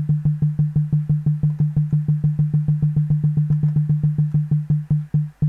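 Synthesized percussive pulses from a Pure Data patch: a 150 Hz sine tone clipped at each onset for a little attack, repeating fast at about seven a second. Near the end the pulses slow sharply as the metro's tempo glides down.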